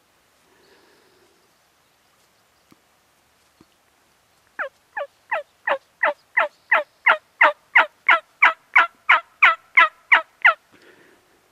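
A long run of hen turkey yelps, about eighteen notes at roughly three a second, each dropping sharply in pitch. The run starts about halfway in, grows louder over its first few notes, then holds steady until it stops.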